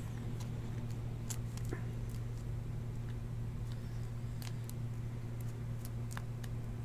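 Faint scattered crinkles and ticks of a thin plastic card sleeve as a trading card is worked into it by hand, over a steady low hum.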